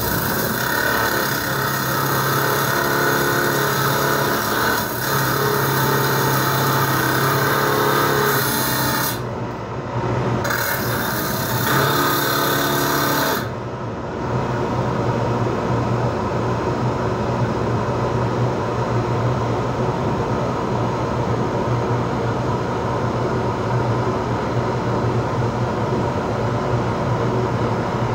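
Bench-mounted cut-off wheel grinding through the copper wire windings of a television deflection yoke, in two stretches with a short break about nine seconds in. From about thirteen seconds on the cutting stops and the wheel's motor runs on with a steady hum.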